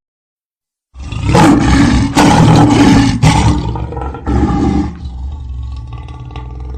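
A large animal roaring loudly in several linked surges for about four seconds, starting about a second in, then a quieter steady rumbling after it.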